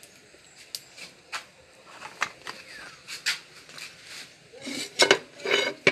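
Cookware being handled on a wood-fired stove: scattered light knocks and clicks, then a louder metal clatter about five seconds in.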